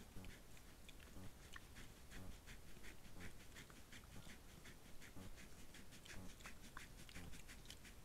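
Wild boar at a rubbing spot, picked up faintly by a trail camera's microphone: irregular crackling and rustling over a low rumble.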